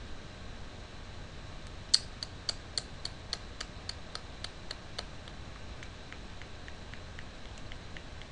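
A quick, even run of about a dozen light clicks, roughly three or four a second, starting about two seconds in. Fainter clicks follow at the same pace to the end, over a steady low hiss.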